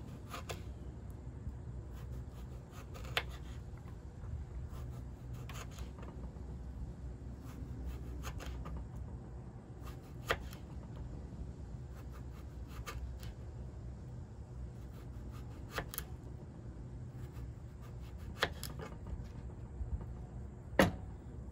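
A small paring knife slicing a cucumber into rounds on a plastic cutting board: a single sharp tap of the blade on the board every two or three seconds as each slice is cut, over a low steady rumble.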